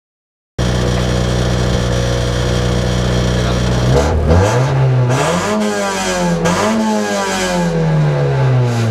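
A Toyota Yaris rally car's engine, heard from inside the cabin. After a moment of silence it idles steadily, then about four seconds in it is revved with the car standing still: the pitch climbs, dips, climbs again and then slowly falls back.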